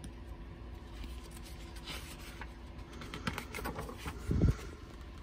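Pages of a paperback book being turned and pressed flat by hand: soft paper rustles and small clicks, with one short dull thump about four seconds in, over a low steady hum.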